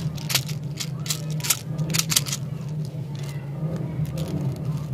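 Plastic clicks and rattling as the cap is worked off a clear plastic candy tube and small round candy balls knock around inside it, a string of sharp clicks over a steady low hum.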